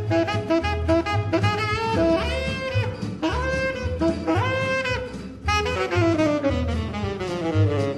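Background music: a melody of long held notes over a steady low beat, sliding down in pitch over the last couple of seconds.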